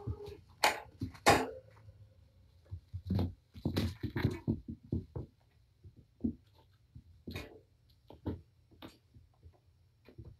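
A mother cat and her kittens playing rough: irregular thumps, scuffles and scrabbling paws as they pounce and chase, with the loudest knocks about a second in and a busy stretch a few seconds later.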